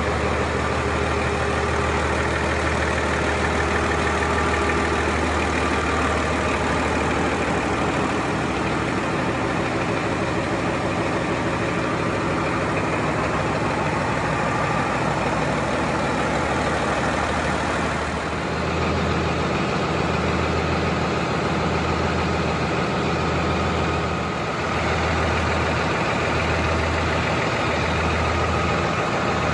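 Caterpillar 3512 V12 marine diesel engine running steadily, heard up close in the engine room. From about two-thirds of the way through, its low hum swells and fades roughly every second and a half.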